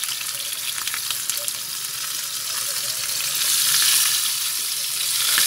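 Hamachi (yellowtail) fish collars sizzling and crackling in hot oil in a frying pan; the sizzle swells louder about three and a half seconds in.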